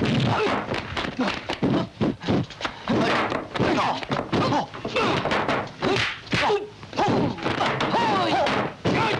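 Kung fu film fight sound effects: a rapid string of punch and block thuds and whacks, several a second, mixed with the fighters' yells.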